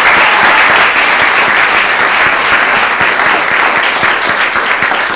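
Audience applause: dense clapping from many hands, easing off a little toward the end.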